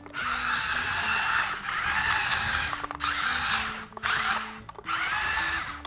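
Toy RC monster truck's small electric motor and plastic gearbox whirring in four spurts of about a second or more each as it is driven, a gear whine running through each spurt. The truck is running on its rubber tracks.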